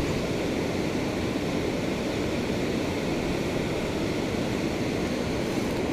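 Steady rushing of river water, an even, unbroken wash of noise.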